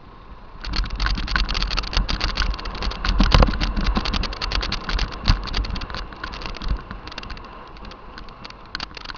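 Mountain bike clattering down a rough dirt trail: a dense, fast rattle of the tyres over stones and the bike shaking, over a low rumble. It starts about half a second in, is loudest around three seconds in, and eases off later.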